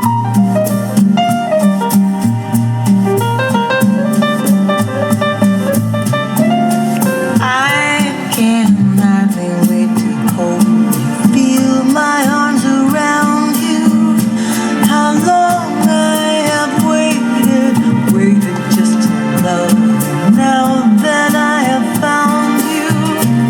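Music played back through the Aiyima T9 tube amplifier: an instrumental passage of a slow jazz ballad, with a steady bass line under melodic lines that slide in pitch.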